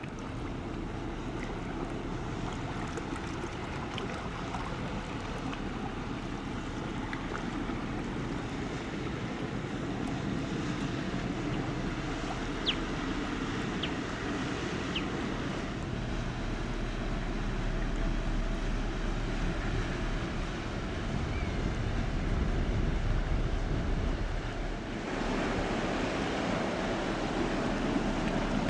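Water rushing in the bow wave and wake of a passing Ro-Ro passenger ferry, with wind buffeting the microphone and a low hum underneath. The rush grows louder near the end.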